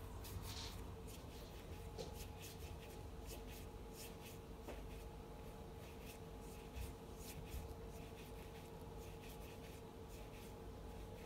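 Faint soft rubbing of oiled palms rolling a ball of mawa (milk-solid) dough into a sweet, in a run of quick irregular strokes. A faint steady hum runs underneath.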